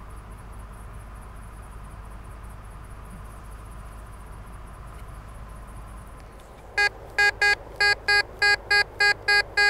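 Faint cricket chirping, then from about seven seconds in a Tesoro DeLeon metal detector sounds a rapid run of short, identical high-pitched beeps, about three a second. The beeps are its response to a high-conductivity target that reads in the high 70s.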